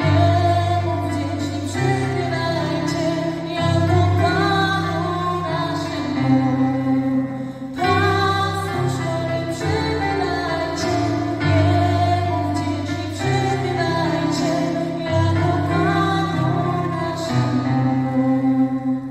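A woman singing a Polish Christmas carol (kolęda) with keyboard accompaniment, the low accompanying notes held and changing every second or two under the sung melody.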